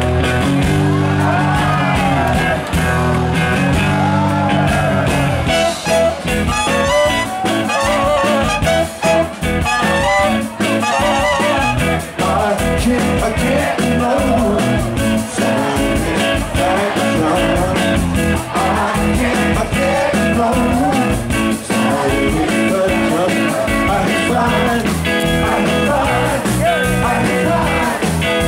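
Live band music with a singer's voice over bass guitar and drums, amplified in a room.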